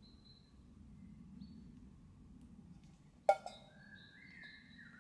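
A single sharp click about three seconds in, followed by a few softer ticks, over faint high thin tones that step in pitch.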